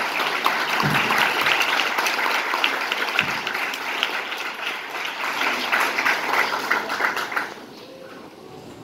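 Audience applauding after a winner is announced, dying away about seven and a half seconds in.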